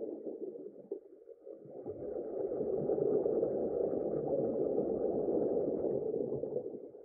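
A muffled rushing rumble, a dense noise with no clear pitch. It dips about a second in, swells back up, and fades out near the end.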